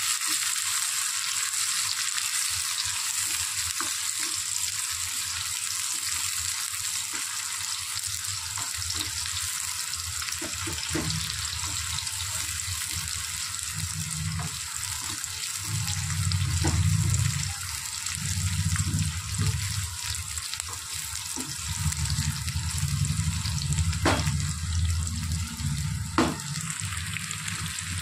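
Sliced onions sizzling steadily in hot oil in an aluminium kadai. A low rumble comes and goes in the second half, and there are two sharp knocks near the end.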